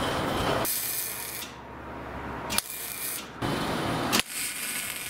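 Wire-feed (MIG) welding: several short runs of arc hiss and crackle, each about a second long, with breaks between them. A rasping scrape of hand-work on the metal comes just before the first weld.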